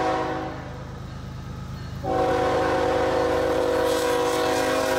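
Canadian National diesel locomotive sounding its air horn, several notes at once, as the train approaches: a short blast ending about half a second in, then a long steady blast from about two seconds in, over the low rumble of the locomotive. Wheel and rail noise comes in near the end as the locomotive passes close.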